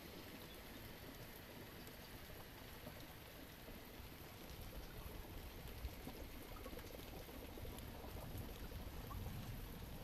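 Steady rain falling, an even hiss of drops that grows slightly louder near the end.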